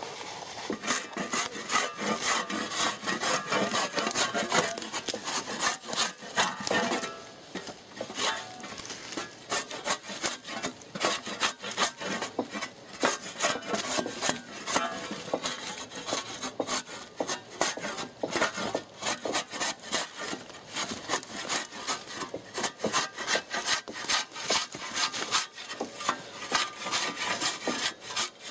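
Steel shovel blade scraping and shaving bark off a freshly felled log, in quick repeated rough strokes: a log being debarked by hand with a cut-down spade.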